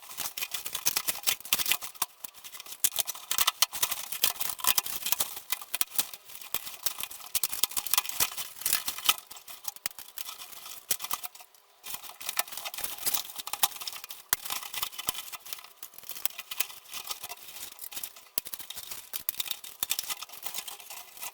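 Protective packaging being unwrapped from a bicycle frame: continuous crinkling and rustling with many small crackles, with a brief pause about halfway through.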